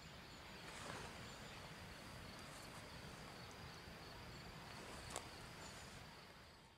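Faint outdoor ambience by a pond: a steady hiss with a thin, high, steady tone over it, and a single click about five seconds in.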